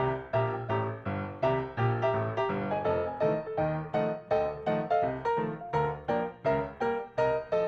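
Background piano music: a steady run of struck notes, about two to three a second.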